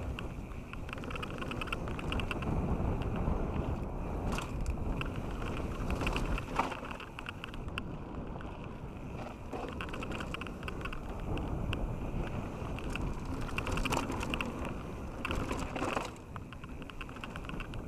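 Canyon Strive enduro mountain bike rolling fast down a loose gravel trail: a continuous rumble of knobby tyres on gravel, with the bike rattling and clicking over the bumps. There is one sharp knock about six and a half seconds in.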